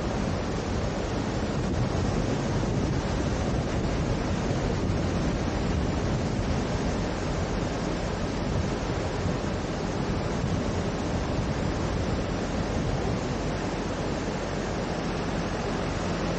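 Fast brown floodwater rushing steadily through a flooded road underpass, with wind buffeting the microphone.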